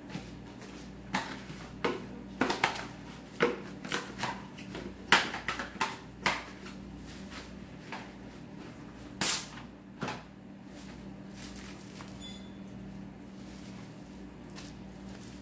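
Plastic cling wrap being handled and crinkled around a piece of fish: scattered rustles and sharp crackles, busiest in the first half, over a steady low hum.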